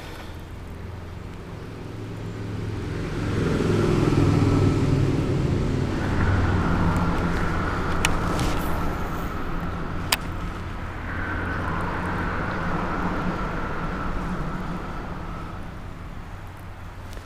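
A motor vehicle passing nearby: its engine hum and whine swell over a couple of seconds, hold, then slowly fade. Two sharp clicks come partway through.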